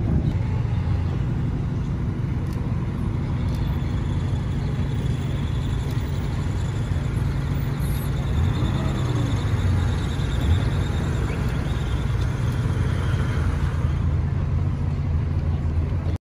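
Car engines idling at low speed, a steady low drone with no revving.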